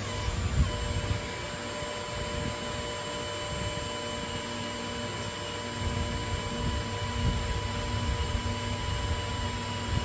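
Small electric hydraulic pump motor on a test rig running steadily, a hum with a held high whine, over low handling rumble.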